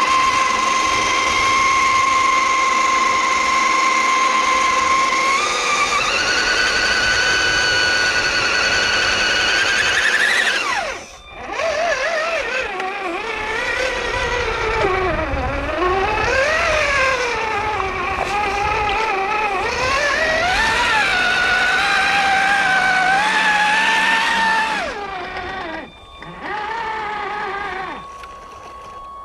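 Electric motor whine of scale RC off-road trucks driving through mud. It holds steady, steps up in pitch about six seconds in, cuts out briefly around eleven seconds, then rises and falls with the throttle before dropping away near the end.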